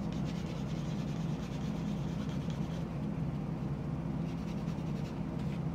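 A small plastic model-kit part rubbed against a fingernail buffing block in rapid scratchy strokes, scuffing the surface so primer will hold. The strokes pause about halfway and start again near the end, over a steady low hum.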